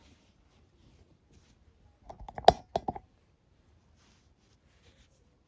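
Hands working nylon paracord on a towel: faint handling rustle, broken by a quick run of sharp clicks and knocks about two to three seconds in, one much louder than the others.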